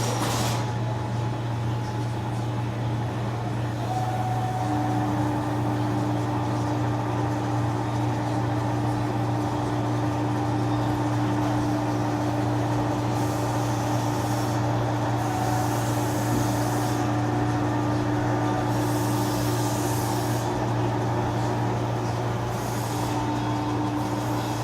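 Metal lathe running steadily, threading a long 1-inch steel shaft, with a constant low hum. About five seconds in, a steady higher tone joins, and in the second half there are short spells of high hiss.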